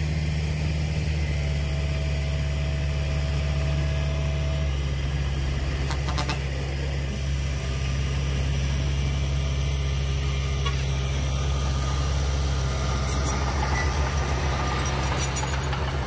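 Heavy diesel engine of earthmoving machinery running at a steady speed, a deep even drone, with a few short clicks or rattles about six seconds in and again near the end.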